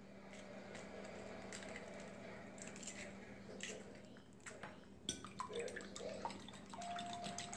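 Eggs being cracked into a bowl, a few sharp cracks of shell, then beaten with a metal fork: quick, rapid clicking of the fork against the bowl starting about five seconds in.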